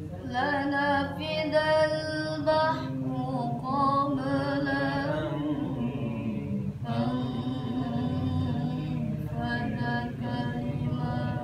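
A child qari reciting the Quran in the melodic tilawah style, one voice holding long, ornamented notes with a short breath break near the middle.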